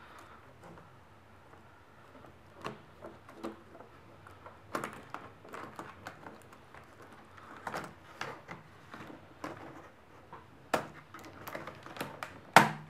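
Irregular plastic clicks, taps and snaps as an HP G62 laptop keyboard is pried up from its clips with a plastic guitar pick. The loudest snap comes near the end.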